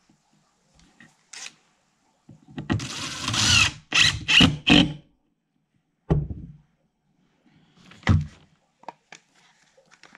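A cordless drill drives a drywall screw into glued plywood: one run of about a second and a half that changes pitch, then three short trigger pulses to seat the screw. Two separate knocks follow as the clamped board is handled.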